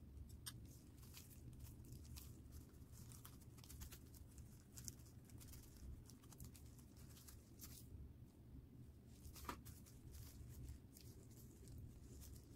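Faint, scattered crinkling and rustling of disposable plastic gloves handling and pinching soft dough on a silicone mat, over a low steady hum, with one sharper tick about three quarters of the way through.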